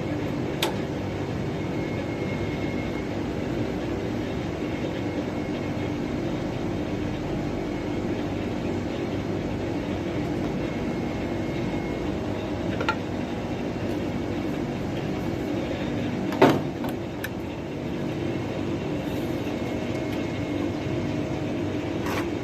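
Steady mechanical hum of running machinery, with a few sharp knocks of metal work on top, the loudest about sixteen seconds in.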